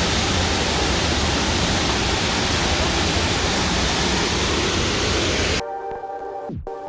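Steady rushing of a waterfall, a dense even roar of falling water. About five and a half seconds in it cuts off abruptly and synthesizer music takes over: held tones that glide downward near the end.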